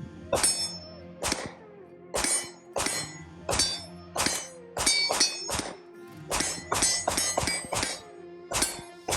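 Steel targets ringing as rounds strike them: about fifteen sharp metallic clangs at an uneven pace, several coming in quick succession between about five and eight seconds in, each with a short high ring.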